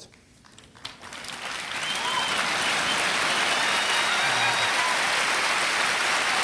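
Audience applause, starting about a second in and swelling to a full, steady ovation.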